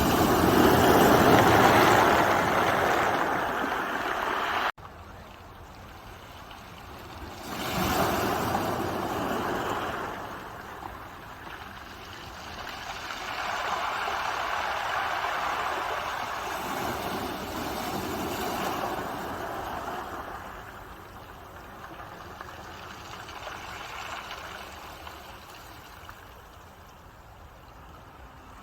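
Ocean surf: waves breaking and washing up in slow swells that rise and fall every few seconds. The loudest wave, in the first few seconds, cuts off abruptly about five seconds in, as at an edit, and several softer waves follow.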